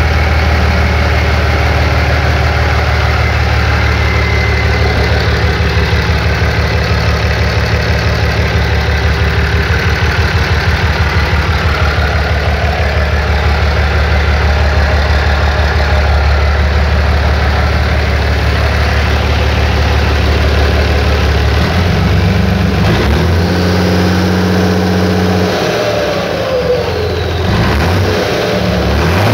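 Mercedes-Benz OM 366 LA six-cylinder turbo-diesel engine running on a stand, idling steadily. From about 22 seconds in its speed changes, rising and then dropping back, with a whine that falls in pitch near the end.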